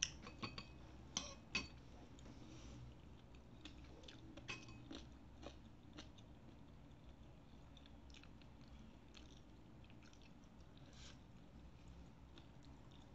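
Faint chewing of baso aci, tapioca meatballs, close to the microphone, with a few sharp clicks in the first two seconds and fainter ones up to about halfway.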